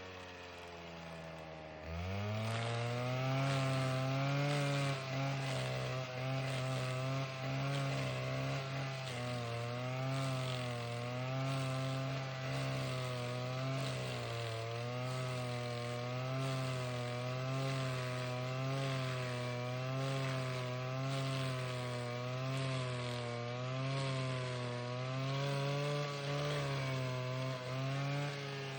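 Alpine Magnum stump grinder engine revving up about two seconds in, then held at full throttle with its pitch wavering up and down as the Greenteeth cutter wheel grinds through the willow stump and roots.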